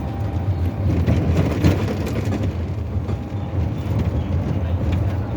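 Steady low rumble of a moving vehicle, with a brief louder swell about a second and a half in.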